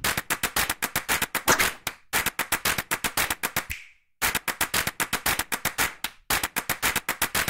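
Rapid series of sharp taps, about eight a second, in four runs of roughly two seconds broken by short pauses, each run fading away at its end.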